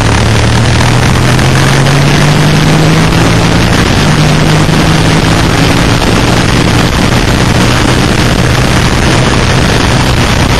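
Suzuki SV650's V-twin engine accelerating hard out of a corner: its note rises over the first few seconds, then holds steady at speed. Heavy wind rush runs throughout.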